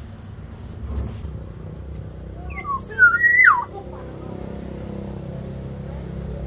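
Black-naped oriole giving one short whistled phrase about two and a half seconds in: a few quick notes climbing, then a loud note that rises and drops steeply. A steady low rumble runs underneath.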